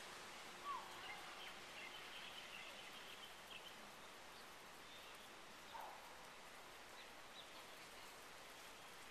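Faint steady hiss of rain falling on vegetation, with a few scattered bird chirps: a short falling call about a second in, another near six seconds, and some thin high chirps in between.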